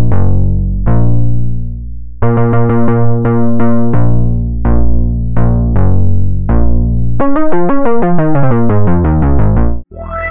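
Omnisphere software synth playing the 'Rich Moogie Pluck' patch, a Minimoog-style pluck built from a sample and a DSP oscillator, played on a keyboard. Plucked notes with a bright attack that quickly mellows come over a bass line and chords, then a fast run of notes about seven seconds in stops abruptly near the end.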